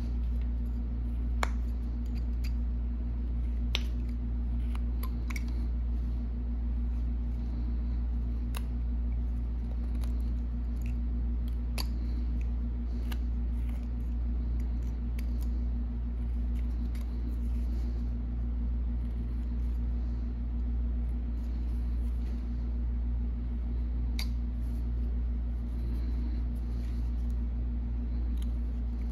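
Carving knife paring small cuts into a block of wood by hand, heard as scattered, irregular faint clicks and scrapes of the blade, over a steady low hum.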